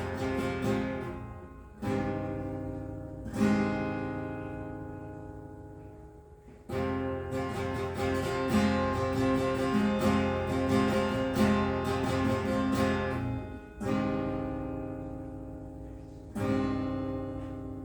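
Acoustic guitar instrumental: chords strummed and left to ring out and fade, with a stretch of quicker picked notes in the middle.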